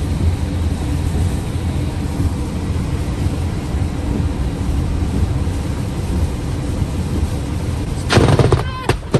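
Steady rushing storm noise of heavy rain and wind. About eight seconds in comes a sudden, very loud crack with a rapid crackle and a second sharp crack just after: the thunderclap of a close lightning strike.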